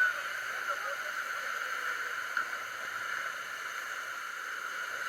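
Steady rushing noise of falling water from the waterfalls, with no distinct events.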